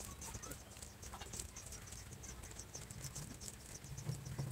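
Dried red chillies being crushed between the fingers on a plate, a faint dry crackling made of many quick little ticks, with a soft thud near the end.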